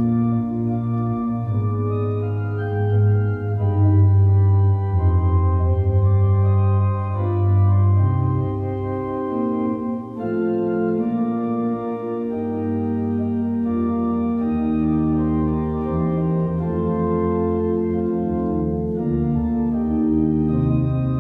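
Organ music: slow, held chords over a deep bass, the bass briefly dropping out about halfway through.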